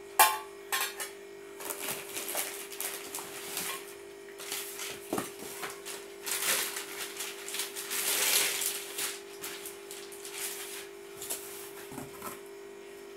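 Handling of new cookware during unboxing: a sharp metal clack about a moment in as the stainless pressure-cooker lid is set down, then crinkling plastic bag and bubble wrap, cardboard box flaps and scattered knocks as the cooker body is pulled out of its box. A steady low hum runs underneath.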